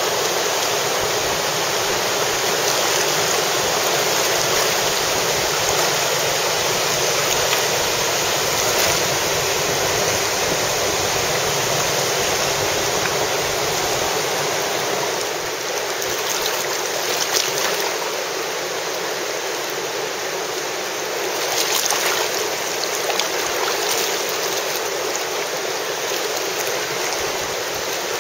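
Steady rushing of whitewater river rapids, slightly softer from about halfway on.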